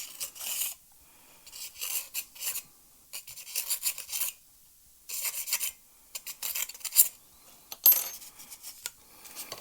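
Hand rubbing and rasping at the edge of a freshly drilled hole in a carbon fibre pole section, smoothing it off: quick scratchy strokes in bursts of about a second, with short pauses between, about six times.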